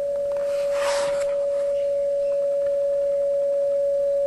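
A steady, pure beat tone from an HF receiver tuned to the 10 MHz output of an FE-5680A rubidium frequency standard. The standard has come up on frequency but has not yet locked: its lock LED is still out. A brief rustling hiss sounds about a second in.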